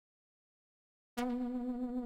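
Ammo 100LA software oscillator in Reason playing one held synthesizer note that starts suddenly about a second in, after silence. It is a buzzy tone rich in overtones with a slight vibrato. The carrier oscillator is being frequency-modulated at audio rate by a second Ammo oscillator.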